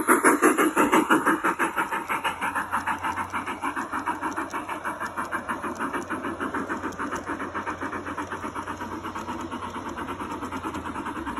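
Model steam locomotive and streamlined passenger cars running along garden track, with a steady rhythmic beat of about five a second that fades as the train moves away.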